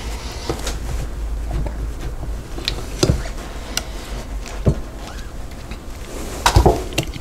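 Old hand-cranked rotary egg beater churning thick cake batter in a glass measuring cup, its beaters clicking and knocking against the glass at irregular moments, with a louder clatter near the end.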